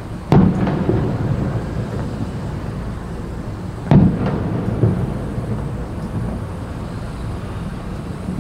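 Aerial firework shells bursting: two deep booms about four seconds apart, each trailing off in a rumbling echo, with a lighter bang shortly after the second.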